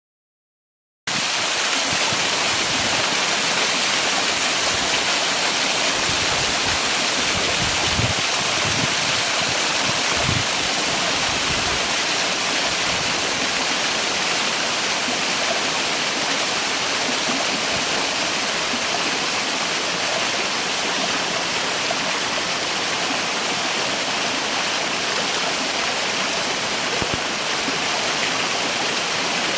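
Waterfall: a steady, even rush of falling water that cuts in suddenly about a second in.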